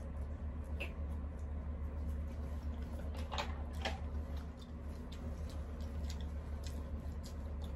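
Close-up eating sounds: chewing and small wet mouth and food noises with a few sharp clicks, over a steady low hum.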